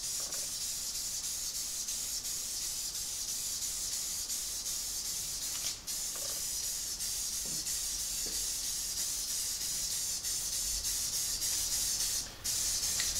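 Aerosol spray can of enamel paint spraying with a steady hiss, broken by two short pauses of the nozzle, about six seconds in and near the end.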